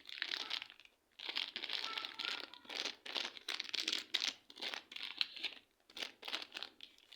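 Slime being squeezed and squished by hand in repeated presses, each a short crackly squelch, with a short pause about a second in and more broken-up presses toward the end.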